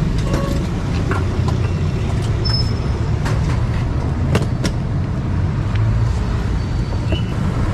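Steady low rumble of an idling engine, with a few light clicks and taps over it.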